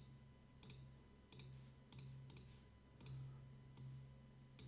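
Computer mouse clicking, about eight faint single clicks at uneven intervals, over a faint low hum.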